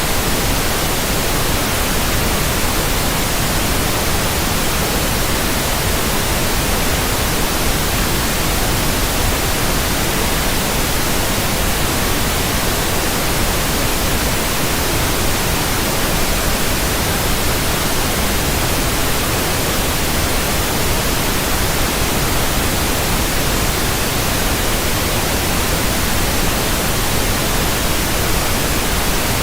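Steady, loud static hiss: an even, unchanging rush of noise across all pitches, with no tones or clicks.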